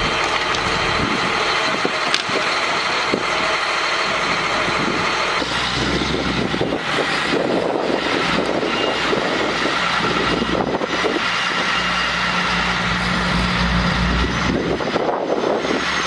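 Armored military truck's diesel engine idling steadily. From about five seconds in the engine sound gets lower and heavier as an armored truck drives slowly over sandy ground.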